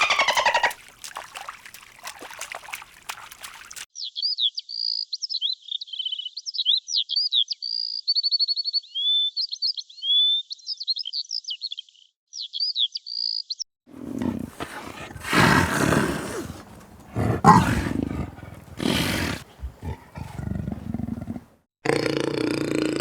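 A run of different animal calls: high, quick chirps and trills for several seconds, then loud, rough calls from a larger animal.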